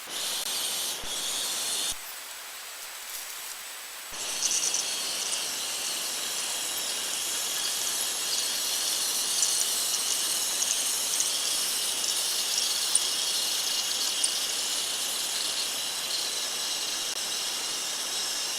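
A steady high-pitched hiss that drops away for about two seconds near the start, then comes back and runs on evenly.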